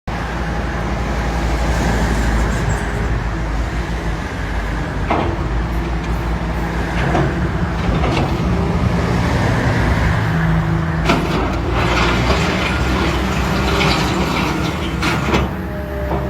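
Heavy diesel construction machinery running with a steady engine rumble, broken by several sharp metallic knocks.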